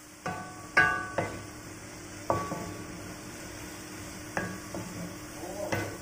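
Wooden spatula knocking and scraping against a stainless-steel wok while stir-frying shredded cabbage, each knock leaving a short metallic ring. About six knocks, the loudest about a second in, over a faint steady hum.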